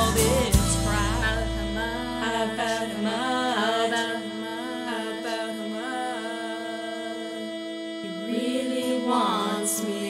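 Punk/alternative rock recording. Drum hits stop just after the start, leaving a long held low note under voices singing drawn-out, wavering notes, first in the opening seconds and again near the end.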